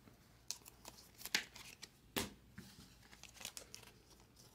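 Trading cards being handled and a card slid into a clear plastic sleeve: scattered soft clicks and crinkles of card stock and plastic, with the sharpest snaps about one and a half and two seconds in.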